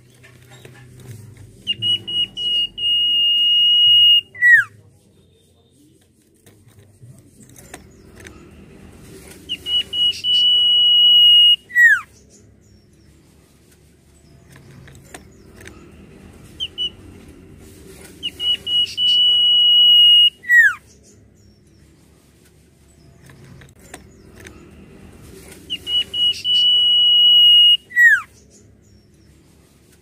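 Common iora (cipoh) singing its long whistle four times. Each phrase opens with a few short notes, holds one steady high note for about two seconds, and ends in a quick downward slur.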